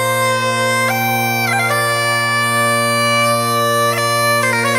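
Bagpipe music: a tune played over steady, unbroken drones, the melody changing note a few times.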